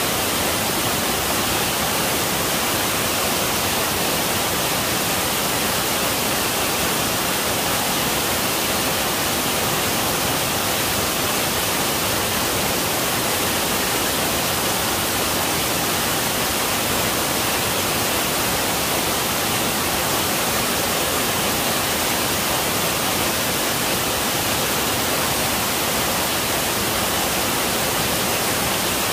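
Waterfall pouring down a rock face onto the rocks below: a steady, unbroken rush of water noise.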